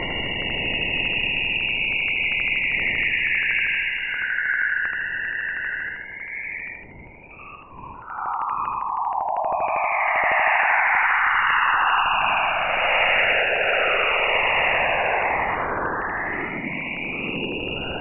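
Radio emissions from Jupiter's polar auroras, recorded by NASA's Juno spacecraft and converted into sound: swirling, sliding high tones over a hiss. It dips briefly about seven seconds in and swells again, strongest in the second half.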